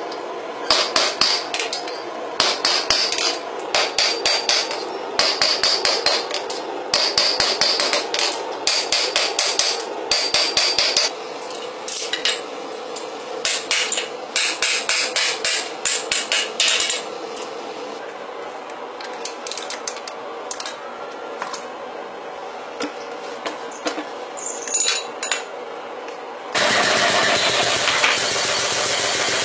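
Hand hammer striking hot steel on an anvil in quick runs of blows, with a clear ringing from the anvil, thinning to scattered taps. Near the end a machine starts up and runs with a steady drone.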